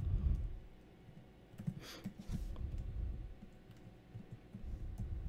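Computer keyboard typing: a few scattered, irregular key clicks as a line of code is finished.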